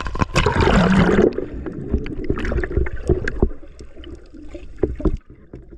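A loud rush of water splashing, about a second long, followed by gurgling and sloshing with many small crackles that die down near the end.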